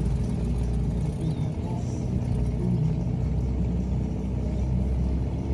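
A small boat's motor running at a steady, low drone as the boat cruises across the lake.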